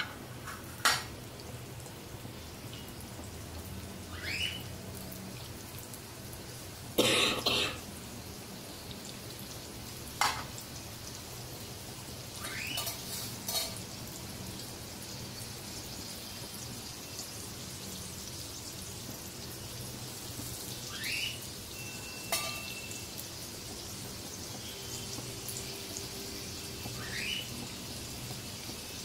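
Oil sizzling steadily under chicken pocket rolls shallow-frying in a nonstick frying pan. It is broken by a few sharp knocks and clatters as more rolls are set into the pan, the loudest about seven seconds in, and by several short rising squeaks.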